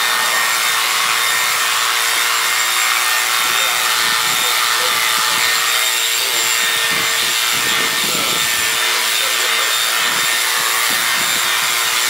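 Corded electric livestock clippers running steadily, cutting a strip of hair from a cow's coat. The motor gives an even buzz with a steady hum that holds at one level throughout.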